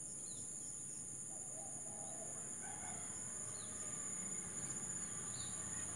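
Steady high-pitched buzzing of insects, with faint bird sounds: a few scattered chirps and a short, low call about one and a half to three seconds in.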